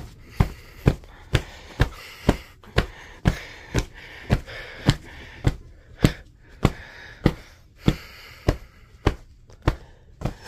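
White plush toy dog beaten repeatedly against a quilted bed comforter: a steady run of soft thuds, about two a second.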